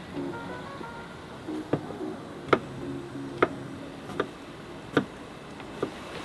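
A handmade knife chopping vegetables on a wooden chopping board: about six sharp knocks, each a single cut striking the board, roughly a second apart, starting a couple of seconds in.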